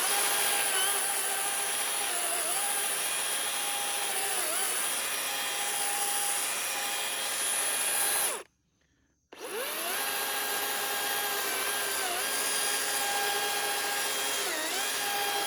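DeWalt 60-volt battery chainsaw with a 16-inch bar, running with a steady electric whine as it cuts into a tree. It stops suddenly about eight seconds in and starts again a second later, and its pitch sags briefly several times under load. The cut goes slowly, and the operator feels the chain is dull and possibly short of bar oil.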